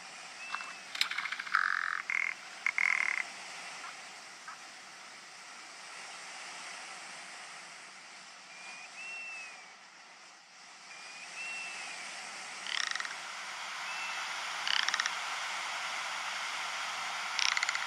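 Rock ptarmigan giving dry, croaking rattles: a cluster of them a second or two in, then single rattles about two thirds of the way through and again near the end. Short thin whistled notes and a steady hiss lie between them.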